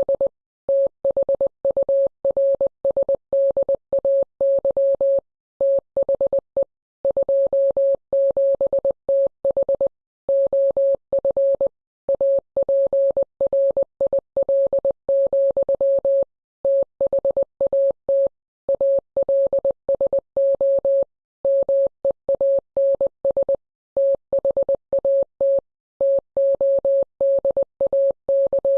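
Morse code sent as a single steady electronic beep, keyed on and off in short dits and longer dahs, with short gaps between letters and longer pauses between words.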